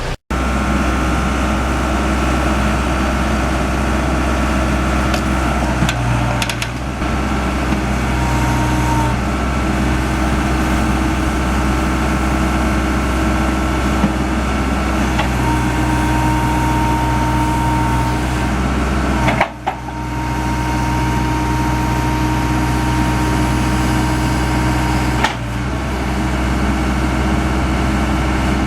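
Diesel engine of a Case 580 Super E backhoe loader running steadily, with a faint high whine that comes and goes and two brief dips in the sound.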